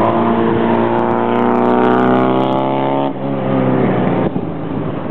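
Chevrolet Cobalt's engine pulling hard under throttle, its pitch climbing, then lifting off abruptly about three seconds in so the engine note drops away.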